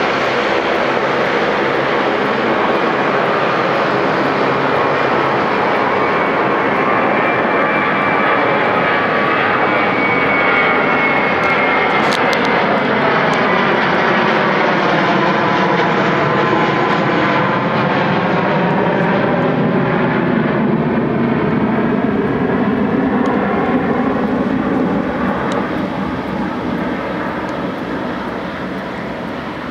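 Jet engines of a Hong Kong Express Airbus A320-family airliner at takeoff power as it climbs out: a loud, steady roar whose tone slowly sweeps up and down, fading over the last few seconds.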